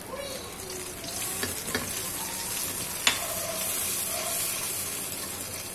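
Hot liquid sizzling and bubbling in a wok while a wire spider strainer stirs it, with a few light clinks of the strainer on the pan and one sharp clink about three seconds in.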